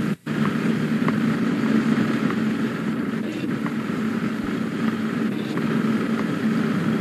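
Steady low hum with a faint hiss, the ambient sound under old news film, with a brief dropout about a quarter of a second in.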